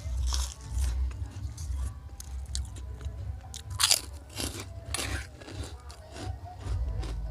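Close-up crunching and chewing of crunchy food, with sharp irregular bites, the loudest about four and five seconds in, over a steady low hum.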